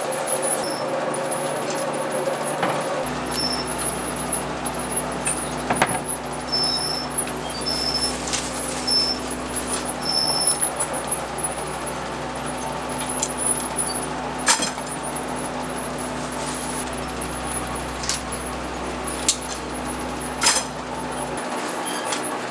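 Noodle-making machinery running with a steady hum. Scattered sharp knocks and clicks come from handling at the machine, and a run of short high beeps sounds in the first half.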